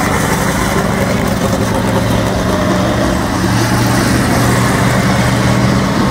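Engines of the cars in a trailer destruction race running on the track: a loud, steady drone with a constant low hum.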